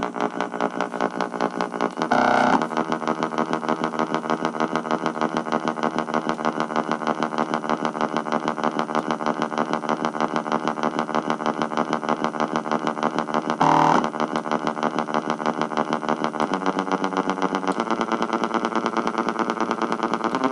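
Stepper motor of a solvent pump heard through an electric guitar pickup: a rapid, even electronic pulsing with a pitched drone. Short louder bursts come about two seconds in and again about fourteen seconds in, and the pattern changes about three-quarters of the way through, as the pump's speed settings change the sound and speed.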